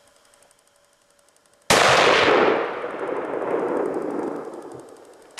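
A single hunting-rifle shot about two seconds in: a sharp, very loud crack followed by a long rolling echo that swells again and dies away over about three seconds.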